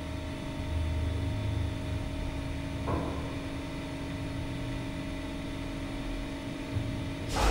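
City street ambience: a low traffic rumble that swells and fades under a steady mechanical hum, with a brief hiss about three seconds in and a sudden louder rush of noise at the very end.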